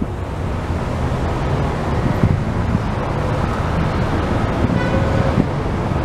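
Steady rushing noise, heaviest in the low end: water cascading down a glass-facade water wall mixed with street traffic, with wind buffeting the microphone.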